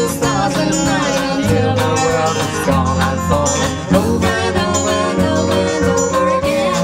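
Country-style music: plucked acoustic guitar with singing, with a steady rhythm.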